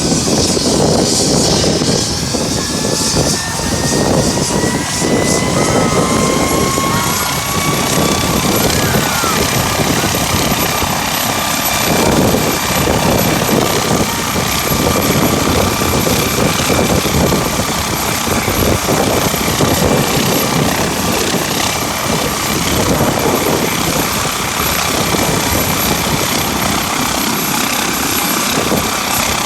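Medical helicopter's turbine running with a whine that rises in pitch over the first few seconds and then holds steady, with the rotor noise mixed into heavy wind buffeting on the microphone.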